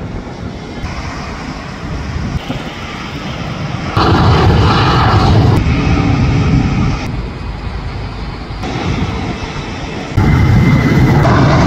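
Jet airliner engines at takeoff power, a run of short clips of different planes spliced together. The roar changes abruptly about every second and a half, loudest about four seconds in and again near the end.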